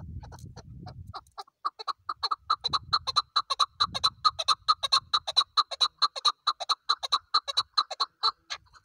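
Chukar partridge calling: a long run of short clucking notes that starts sparse and quickens to a steady rapid series of about five notes a second.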